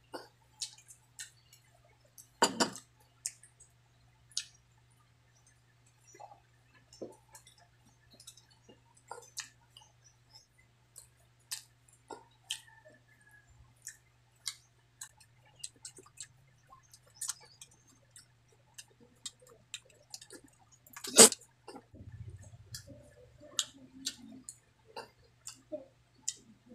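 Close-miked eating sounds: wet chewing with many short lip-smacking clicks, over a faint steady low hum. Two louder knocks stand out, one a couple of seconds in and the loudest about twenty seconds in.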